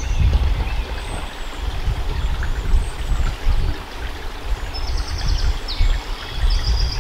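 Outdoor wind rumbling on the microphone, gusting unevenly, with faint birdsong: short chirps, plus a few quick trills about five seconds in.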